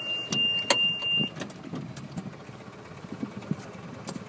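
Golf cart running, a low steady rumble with a few sharp clicks and knocks. A steady high-pitched tone cuts off about a second in.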